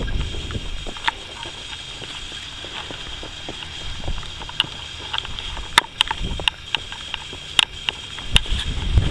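Footsteps of a person walking on an asphalt road, heard as scattered sharp taps, more frequent in the second half. Wind rumbles on the microphone near the start and end.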